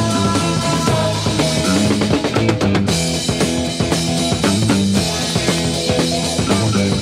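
Early-1970s rock record playing: a full band with drum kit and guitar, with held notes over a steady drum beat.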